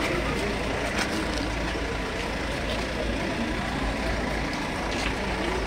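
A vehicle engine idling steadily, with a low rumble and faint voices in the background.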